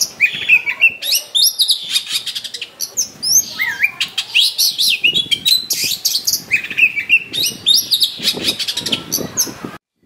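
Oriental magpie-robin singing an insistent, combative song: a fast, varied string of whistled slides and trills broken by runs of harsh rattling clicks. The song cuts off suddenly near the end.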